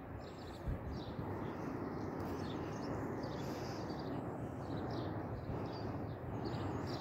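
Birds chirping and singing in short scattered phrases over a steady low outdoor rumble, with a brief bump about a second in.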